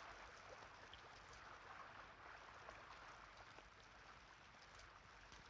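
Faint, steady hiss of rain.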